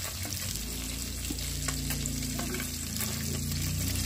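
Whole pona fish (small rohu carp) sizzling in hot oil in an aluminium wok, a steady hiss with small crackles, as the pieces fried crisp are lifted out with a metal spatula.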